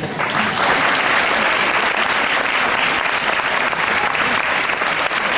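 Audience applause, a dense clapping that breaks out as the string orchestra's piece ends and holds steady.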